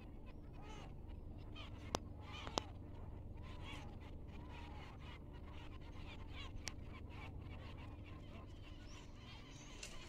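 Many birds calling in short, rising and falling notes over a steady low rumble, with three sharp clicks, two of them around two seconds in and one near seven seconds.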